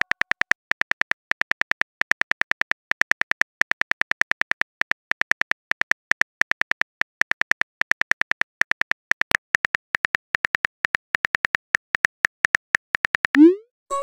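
Phone on-screen keyboard click sound effect, rapid short clicks one per letter as a message is typed. About a second before the end, a quick rising whoosh as the message is sent.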